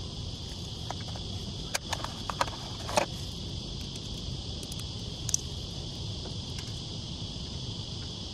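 A few sharp clicks and knocks of hands working on an air conditioner outdoor unit's bare fan motor and metal shroud, clustered about two to three seconds in and once more about five seconds in. A steady high-pitched buzz and a low rumble run underneath.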